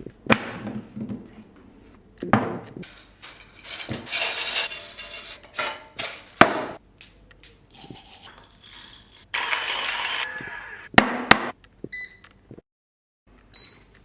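A run of coffee-brewing sounds: clinks and knocks of equipment, short noisy bursts, and a louder steady noisy stretch of about a second past the middle. Near the end come a few short high beeps.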